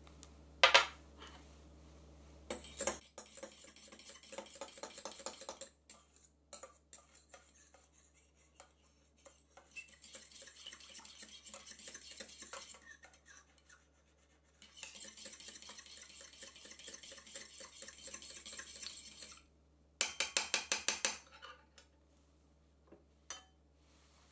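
A metal fork whisks yeast into warm water in a stainless steel measuring cup, scraping and ticking rapidly against the metal in three long spells. There is a sharp clink about a second in, and near the end a quick run of about eight sharp clinks.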